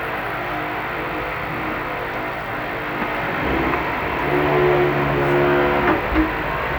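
Steady mechanical construction noise from other trades working in the building, with a motor tone that comes in about four seconds in and stops near six seconds.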